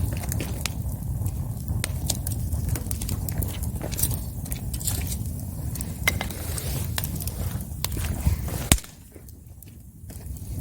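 Wood fire burning: a steady low rush of flames under frequent sharp crackles and pops of burning wood. Near the end a loud pop is followed by a sudden drop in the low rush for about two seconds.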